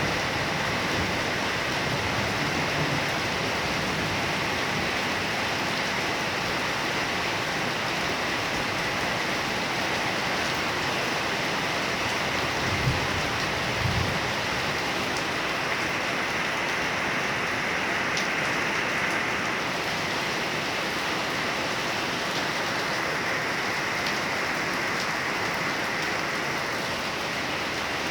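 Heavy rain falling in a steady downpour, with a short low rumble about halfway through.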